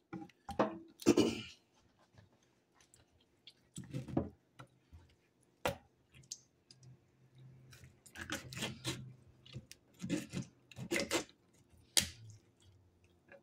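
Knife cutting through a raw slab of pork ribs on a wooden cutting board: short rasping cuts and handling of the wet meat, with sharp knocks of the blade on the board, one about six seconds in and another near the end.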